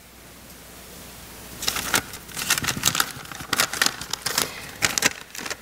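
A folded paper letter being unfolded by hand, crinkling in a run of quick crackles from about a second and a half in until near the end.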